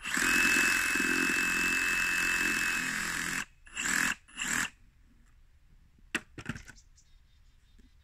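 Ridgid reciprocating saw cutting into a pumpkin, running steadily with a whine for about three and a half seconds, then two short bursts of the trigger. A sharp knock follows about six seconds in.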